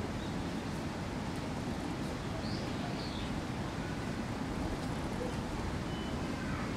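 Steady low rumbling background noise, with two faint high chirps from a small bird a little over two seconds in.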